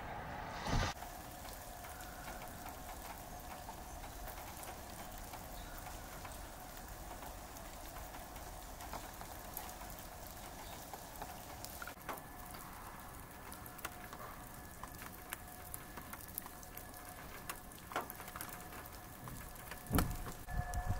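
Light rain pattering steadily, with scattered sharp ticks and drips.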